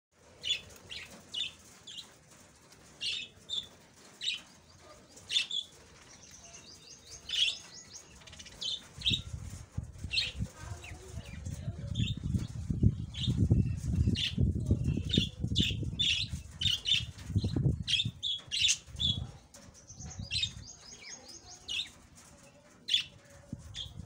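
A flock of budgerigars chirping and calling in short, repeated high notes. From about nine seconds in, wings flap as birds fly about the aviary, a dense fluttering that is the loudest sound for about ten seconds before it dies down and returns near the end.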